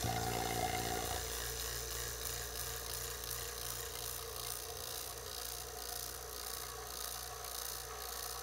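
Vacuum pump pulling down a sealed jar through the hoses: it loads up abruptly at the start with a brief higher-pitched tone for about the first second, then settles to a steady running hum as the jar is drawn into deep vacuum.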